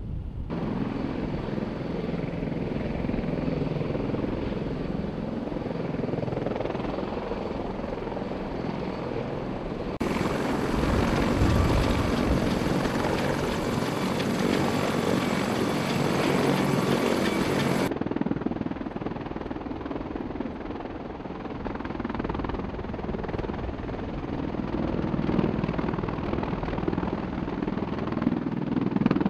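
Military rotorcraft running, in several cuts. From about ten seconds in, the loudest part is a CH-53 heavy-lift helicopter taxiing with its turbines and rotor running. From about eighteen seconds, the rotors of MV-22 Osprey tiltrotors are heard hovering.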